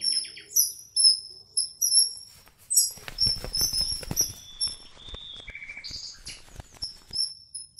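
Small birds chirping: short, high notes repeating throughout. Scattered light clicks and taps come in from about three seconds in.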